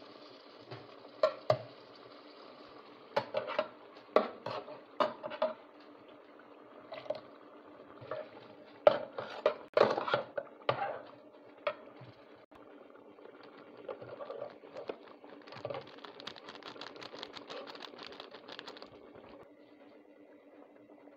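A metal spatula stirs chicken in bubbling tomato gravy in a metal pot, knocking and scraping against the pot at irregular moments. The knocks are busiest about nine to eleven seconds in, and a steady low hum runs underneath.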